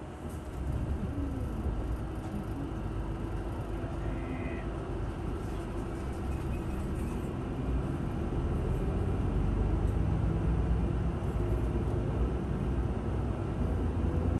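Steady low rumble of a vehicle running, slowly growing a little louder, with a brief high tone about four seconds in.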